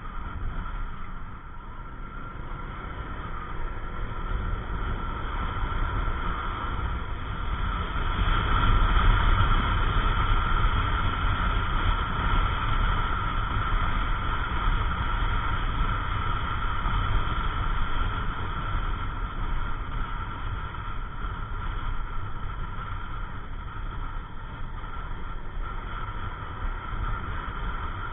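Onboard riding noise from a Yamaha NMAX 155 scooter: wind rushing over the microphone, with the scooter's engine and road noise underneath. It grows louder about eight seconds in and stays steady after that.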